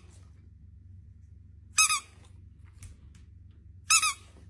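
Boxer dog giving short, high-pitched squeaky whines: two brief wavering cries about two seconds apart.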